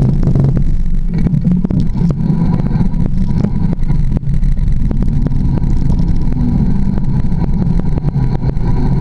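Mountain bike rolling down a dirt singletrack, picked up by a camera mounted low on the fork: a steady low rumble from the tyre and frame, with frequent clicks and rattles as the wheel goes over roots and stones.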